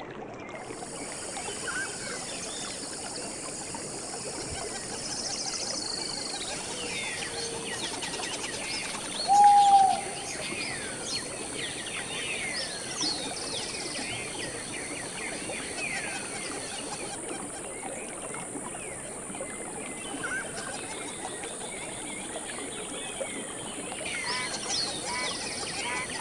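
Many birds chirping, quick falling calls over a steady high hiss, with one louder short call about nine and a half seconds in.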